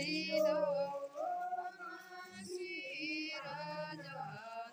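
A group of men's and women's voices singing a hymn together, holding long notes with slow shifts in pitch between them.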